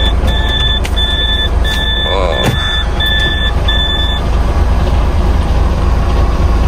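DAF XF 510 truck's diesel engine running with a steady low rumble, while a reversing-alarm-style beeper sounds about one and a half times a second and stops about four seconds in.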